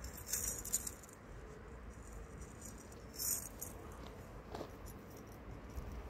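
Faint rustling and light metallic jingling in short bursts as the laces are worked loose on a padded gambeson.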